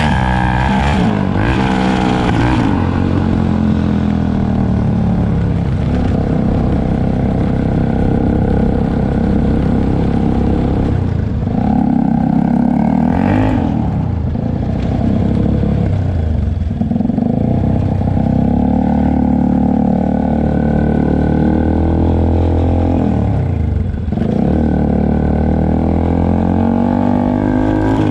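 Yamaha YZF-R25's parallel-twin engine running through an SC-Project full-system exhaust with the dB killer removed, loud, while riding. The engine note rises and falls with the throttle, dropping away briefly several times.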